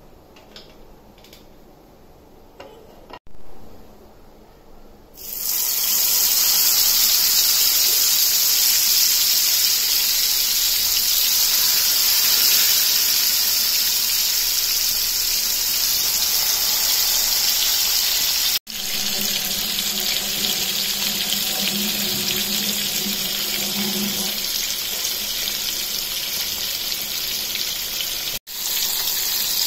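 Masala-coated whole fish frying in hot oil in a shallow nonstick pan. It is quiet at first; then a loud, steady sizzle starts suddenly about five seconds in, as the fish go into the oil, and goes on.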